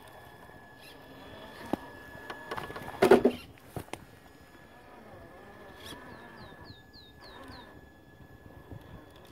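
Traxxas TRX-4 rock crawler working up a boulder: tyres and chassis clicking and scraping on the rock, with a loud cluster of knocks and scrapes about three seconds in, over a steady high electronics whine. Around six seconds in, a quick series of six high falling chirps.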